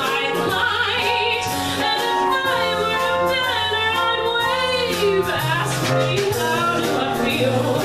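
A woman singing a jazzy show tune into a microphone, backed by piano, bass and drums with cymbals.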